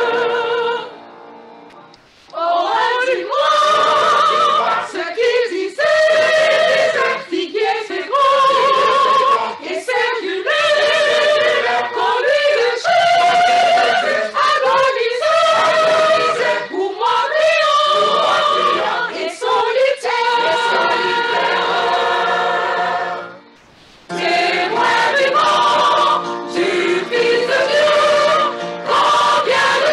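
Mixed choir of men's and women's voices singing together, with two brief breaks between phrases, one about a second in and one about three quarters of the way through.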